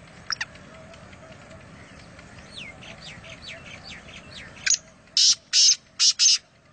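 Black francolin calling: about five loud, grating notes in quick succession near the end, over fainter chirps of small birds before them.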